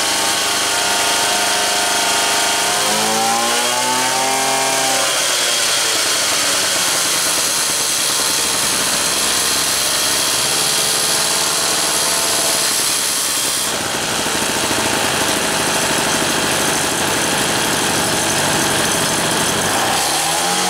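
Motobecane moped's small two-stroke single-cylinder engine running steadily on its stand after its first start on a new CDI ignition coil. It is revved up and back down about 3 s in and again near the end.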